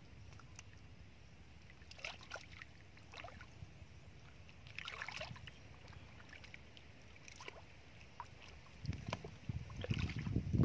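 Hands and bare feet working in shallow muddy water, with a few scattered small splashes and squelches. Louder low thuds and rumble come near the end.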